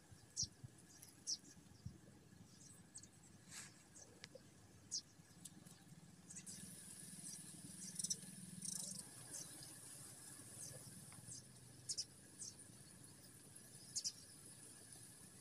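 Faint garden ambience: scattered short, high chirps of small birds over a steady high insect drone, with a low hum swelling for a few seconds in the middle.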